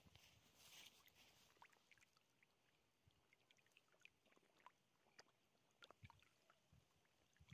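Near silence: faint outdoor ambience with scattered small ticks and a brief faint hiss about a second in.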